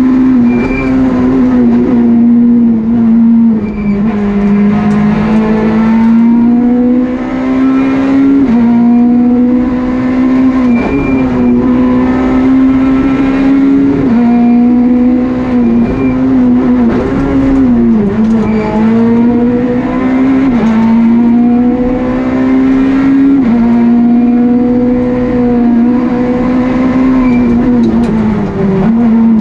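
Peugeot 208 R2 rally car's 1.6-litre naturally aspirated four-cylinder engine heard from inside the cockpit, driven hard at high revs. Its pitch holds high and drops sharply several times before climbing back, as it changes gear and lifts through the corners.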